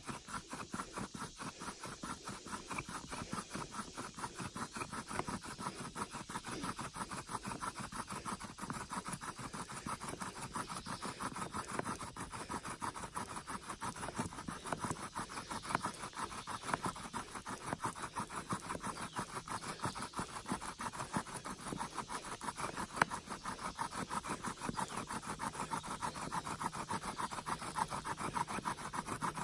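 Bow drill in use: a wooden spindle, driven by a bow strung with wild dogbane cordage, spins against the hearth board, making a rhythmic squeaking, grinding rub with each back-and-forth stroke. It is the friction that builds heat toward an ember.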